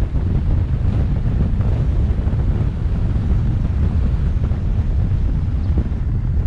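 Wind buffeting the microphone of a camera on a moving car: a steady low rumble with a fluttering texture.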